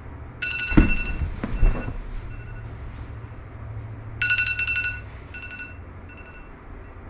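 A series of electronic beeps at two fixed pitches over a steady low hum: a longer buzzy tone near the start, another about four seconds in, and several short beeps between and after. Two heavy thumps come about a second in.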